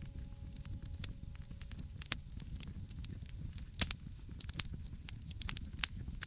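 Wood fire in a fireplace crackling: scattered sharp pops and snaps, irregular and of varying strength, over a steady low rumble of the flames.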